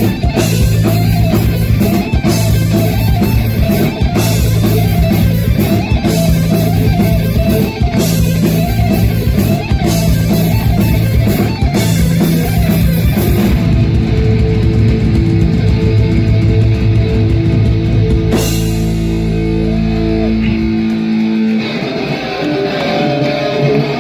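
Punk rock band playing live and loud: distorted electric guitars, bass and drums. A little over halfway through, the drums drop out and held guitar notes ring on as the song winds down.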